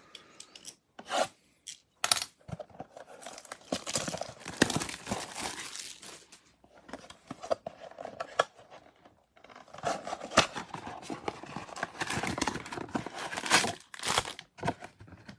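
Shrink wrap being slit and stripped off a cardboard baseball card blaster box, then the box being torn open and its foil card packs pulled out: irregular crinkling, tearing and scraping with sharp clicks, in two busy stretches.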